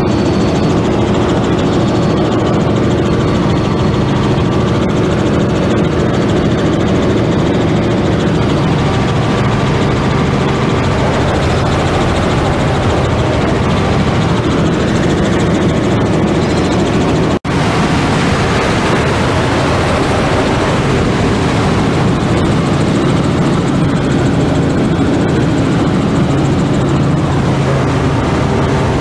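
Helicopter engine and rotor noise heard from on board: a loud, steady drone with a few held low tones. It drops out for an instant about two-thirds of the way through.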